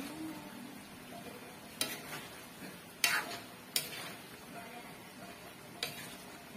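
Metal ladle stirring a chicken stew in tomato sauce in an aluminium wok, clinking sharply against the pan about four times.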